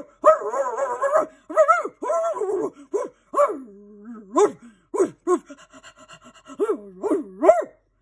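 A dog barking over and over, about a dozen short barks, with a longer wavering call near the start.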